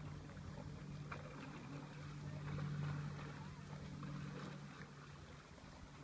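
Faint steady drone of a motorboat engine, growing a little louder toward the middle and fading away near the end.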